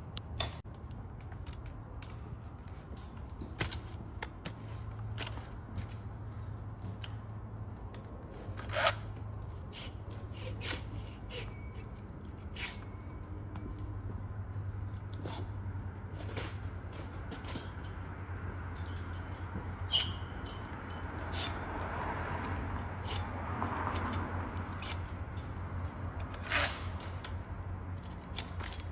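Hand pruning shears snipping branches: scattered sharp clicks at irregular intervals, a few louder than the rest, over a steady low hum.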